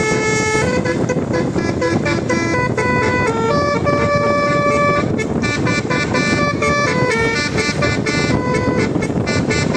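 Bus telolet horn, a multi-trumpet musical air horn, playing a melody of stepping notes, some short and some held for about a second, over a steady noisy rumble.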